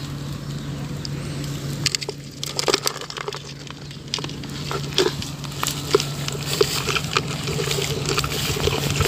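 Light, irregular clicks and taps from a red plastic bucket holding live crabs and frogs as it is handled and the crabs move inside, over a steady low hum.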